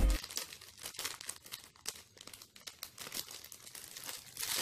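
Clear plastic wrapper crinkling in irregular crackles as hands unwrap a squishy toy, growing louder near the end.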